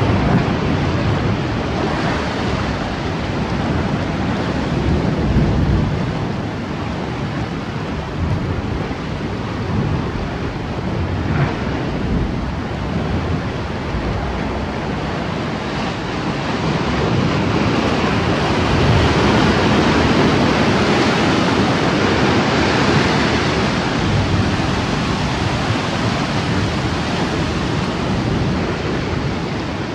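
Sea swell surging and breaking against a rocky shore in a continuous wash of surf that rises and falls, loudest about two-thirds of the way through, with wind buffeting the microphone.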